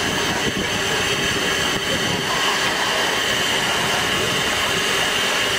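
Steam locomotive B.F.D. 9, a Swiss rack steam engine, standing at a water crane while taking water, with a steady hiss that does not change throughout.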